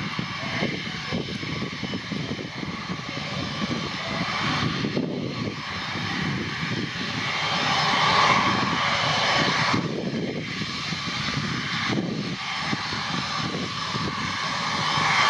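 Airbus A320-family twin-jet's turbofan engines running at low thrust as it taxis: a steady whine over a rumble, swelling about eight seconds in and again near the end.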